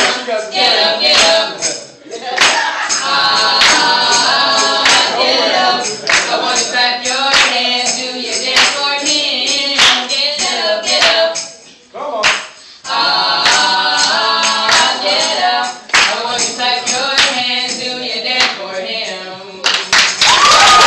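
A small mixed group of voices singing together to steady hand clapping. The singing drops away briefly twice.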